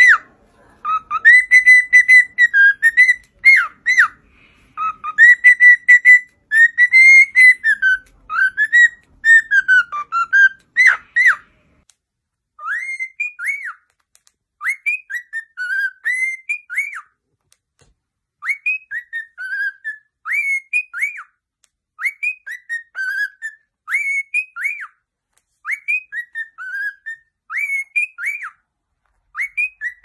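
Cockatiel whistling a tune in clear, loud notes that glide up and down. About twelve seconds in, the whistling changes to a short rising-and-falling phrase repeated over and over, roughly every two seconds.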